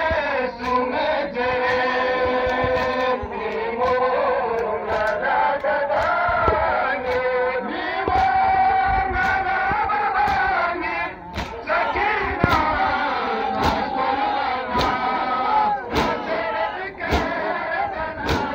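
A crowd of male mourners chanting a Balti noha (Shia lament) together, with sharp smacks of hands striking chests (matam) keeping the beat. The smacks come about once a second and are most regular in the second half.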